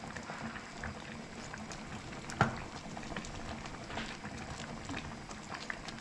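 Pot of fish stew bubbling steadily, with scattered small clicks and one sharper knock about two and a half seconds in.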